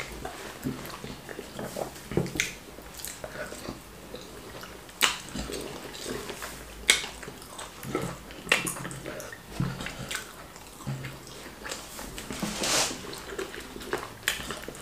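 Close-miked eating sounds of wheat fufu and ogbono soup being eaten: chewing and swallowing, with a sharp smack or click every second or two.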